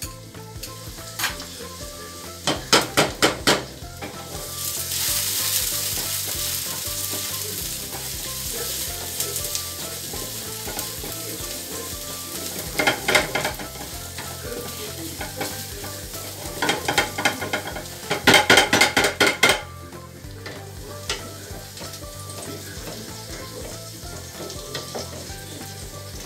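Garlic sizzling in hot oil in a small frying pan as it fries towards golden brown for a tadka. Clattering stirring scrapes against the pan come three times: about three seconds in, around thirteen seconds, and a longer run from about seventeen to nineteen seconds.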